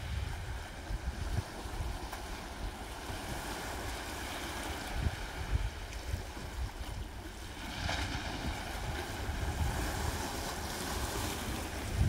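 Small sea waves lapping and washing among rocks on a rocky shore at low tide, with a stronger wash coming in about eight seconds in. Wind rumbles on the microphone underneath.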